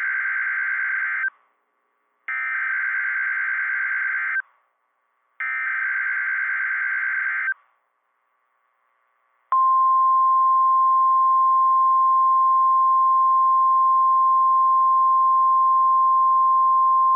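Emergency Alert System SAME header: the tail of one burst of warbling digital data tones, then two more bursts of about two seconds each. About nine and a half seconds in, a single steady NOAA Weather Radio warning alarm tone starts and holds, signalling that an urgent alert (here a tornado watch) follows.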